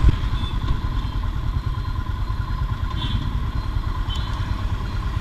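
Royal Enfield Himalayan's 411cc single-cylinder engine running steadily at low speed in traffic. A few brief faint high tones come about half a second in, at three seconds and at four seconds.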